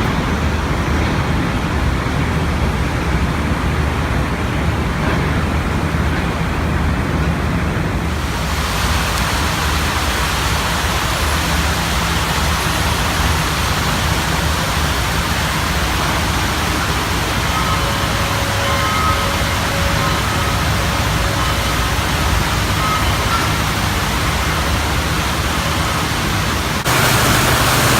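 Steady rushing outdoor noise, brighter from about eight seconds in, with a sudden jump in level near the end.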